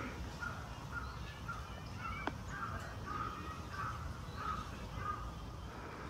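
Crows cawing in a quick run of short, evenly spaced caws, with a single sharp click about two seconds in.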